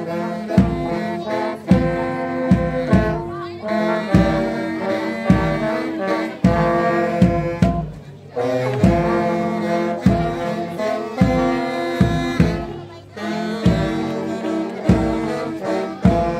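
Brass band playing a tune in slow, steady time with a low beat about twice a second, pausing briefly between phrases.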